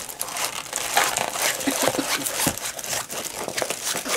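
Clear plastic packaging of a diamond-painting kit crinkling and rustling in irregular crackles as the rolled canvas and papers are pulled out of it.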